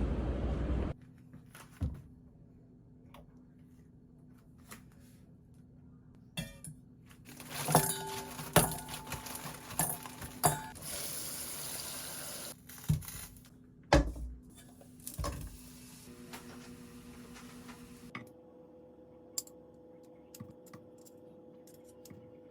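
Kitchen work sounds: scattered knocks and clinks of dishes and utensils, with a few seconds of running or pouring water near the middle.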